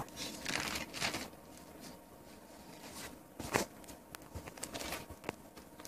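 Faint rustling with a couple of soft clicks, one near the middle and one near the end.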